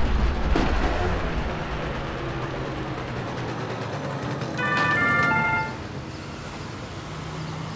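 City street traffic: a heavy low rumble of a passing vehicle at the start, then steady traffic noise. About halfway through comes a brief run of pitched tones stepping between notes.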